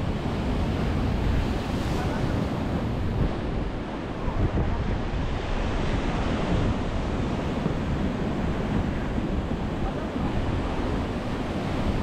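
Sea surf breaking and washing over a pebble shore and against concrete tetrapods, a continuous rushing roar of waves. Wind buffets the microphone, giving a heavy low rumble underneath.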